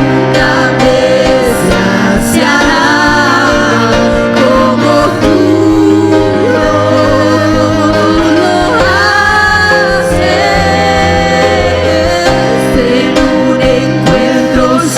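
Gospel worship music: voices singing a melody over instrumental accompaniment with sustained bass notes.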